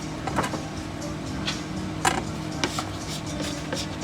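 Food stall ambience: a steady low hum under scattered sharp clicks and knocks of work at the stall, the loudest knock about halfway through.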